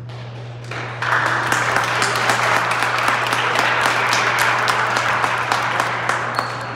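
Spectators applauding and clapping, starting about a second in and tapering off near the end, over a steady low hum.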